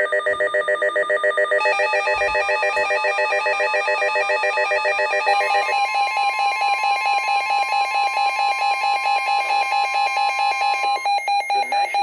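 Weather radio alert alarm: a loud, rapidly pulsing electronic beeping whose tone pattern changes twice, with NOAA Weather Radio's steady 1050 Hz warning tone running underneath from about two seconds in until about a second before the end. It signals an incoming severe thunderstorm warning.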